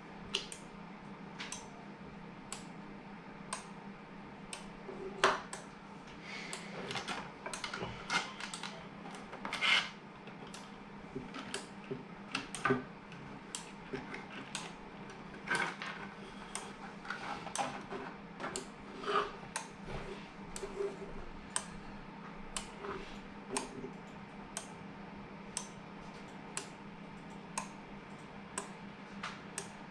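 Hands handling a plastic electronics enclosure and its wiring on a wooden desk: irregular clicks, knocks and rattles, loudest about five and ten seconds in. Under it, a steady sharp tick about once a second and a low hum.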